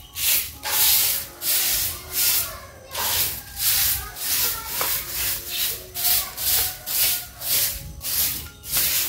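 Broom sweeping dirt and debris on bare ground: brisk swishing strokes, about two a second, kept up steadily.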